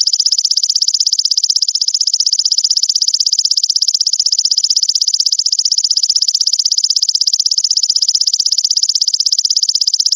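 Golden grasshopper (belalang emas) calling: a loud, continuous high buzz made of very rapid even pulses.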